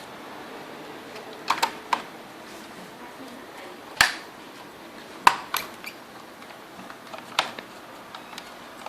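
Irregular sharp clicks and taps of small screws and a screwdriver on a laptop's plastic case as the cover screws are put in. The two loudest clicks come about four and five seconds in.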